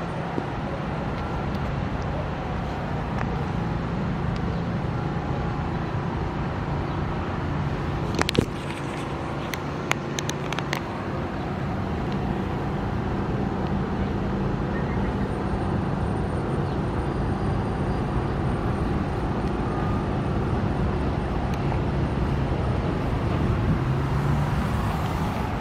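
Steady city road traffic: cars and engines running by, a continuous rumble with a low hum. A few short sharp clicks come about a third of the way in.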